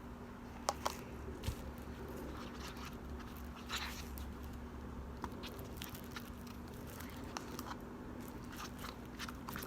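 A spoon stirring glue-and-activator slime in a container, with scattered sticky clicks, squelches and scrapes as the mixture thickens into slime.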